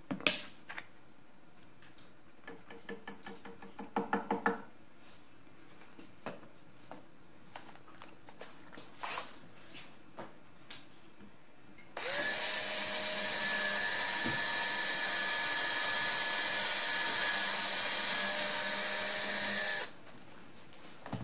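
Electric hand drill with a small 1.75 mm bit runs steadily for about eight seconds and then stops sharply, drilling the pin hole in a new pistol front sight. Before it there is a run of quick clicks that get louder.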